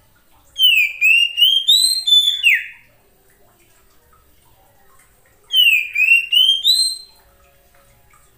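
Oriental magpie-robin (kacer) singing: two short phrases of clear whistled notes sliding up and down, a few seconds apart, the second a shorter repeat of the first.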